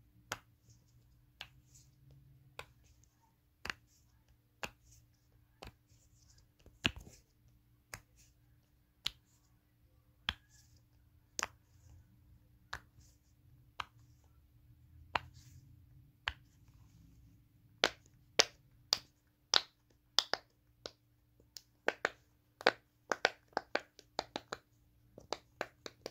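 Sharp clicks and snaps from a fidget toy being worked by hand, about one a second at first, then in faster, louder runs near the end.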